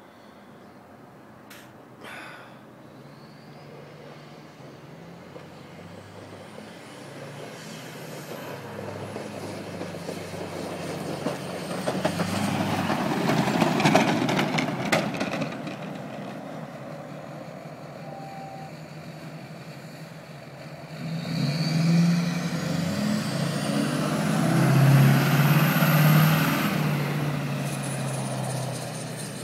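Duramax V8 turbodiesel of a 2004 Silverado 2500HD plow truck running through a 5-inch MBRP exhaust as the truck drives past. It grows louder as it approaches, peaks about halfway through, then eases off. In the last third it surges again, at its loudest, with a high whistle climbing over the engine.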